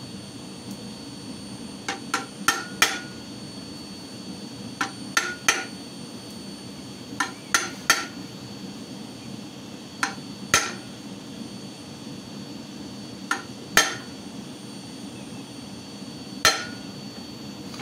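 A hammer striking a hand-held chisel that cuts a groove into a forged steel leaf on a steel anvil plate. There are about fifteen sharp metallic blows in short groups of two to four, a few seconds apart, some with a brief ring. Only the corner of the chisel is used to cut the leaf's vein grooves.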